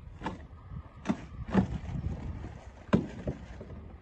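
Five or so irregular knocks and thumps as wrapped mineral specimens are handled and set down inside a large plastic tank, over a low background rumble.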